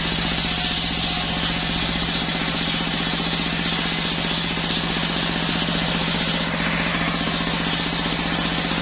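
Machine circular saw for sawing logs running steadily, its drive giving a fast even pulse with a constant hum and hiss.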